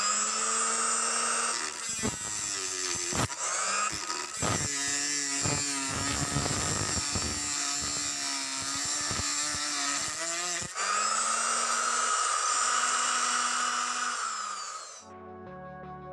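Homemade circular saw driven by a blender motor, running at high speed with a steady whine. From about two seconds in to about ten, it cuts through material, and the whine wavers and breaks up with irregular knocks. It then runs free again and stops near the end, where soft music comes in.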